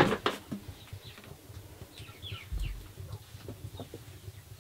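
Chickens calling: a few short, high chirps that fall in pitch about two seconds in. A sharp knock comes right at the start and is the loudest sound.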